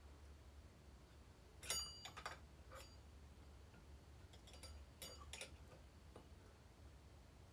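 Light metal-on-metal clicks and clinks as the greased needle bearing and clutch drum are worked onto the crankshaft of a Stihl 029 chainsaw, the sharpest about two seconds in with a short ring, a few more around five seconds in.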